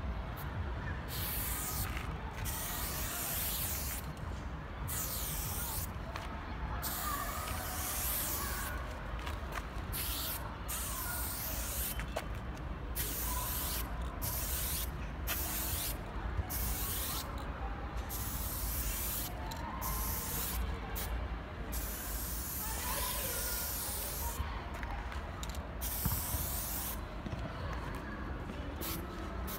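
Aerosol spray paint can hissing in many on-off bursts, short and long, with brief pauses between, as paint strokes are sprayed onto a wall.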